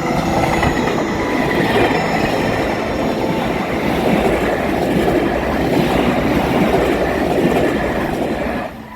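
Train passing close by at a level crossing: a steady, loud rush of wheel-on-rail and running noise that drops away near the end.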